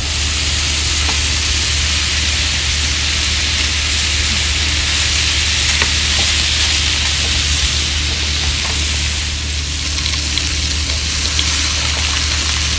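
Pork sizzling in a hot pan: a steady frying hiss with a few small spatter ticks, over a low steady hum.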